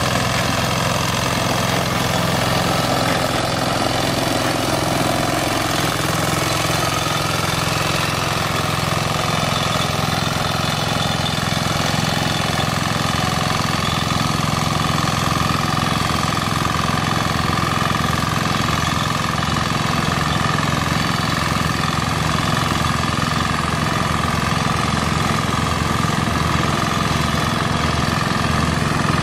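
Engine of a walk-behind reaper binder running steadily while the machine cuts and binds wheat.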